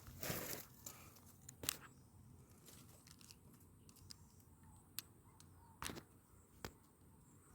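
A brief rustle, then a few scattered sharp clicks over a faint, quiet background.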